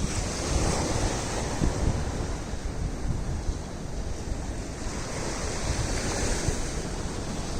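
Sea surf breaking on a beach in a steady wash, with wind buffeting the microphone.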